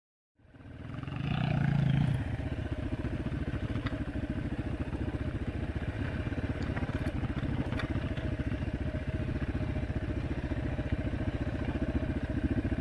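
Dirt bike engines running at low trail speed, with a steady pulsing note that swells once about two seconds in, and a few faint clicks.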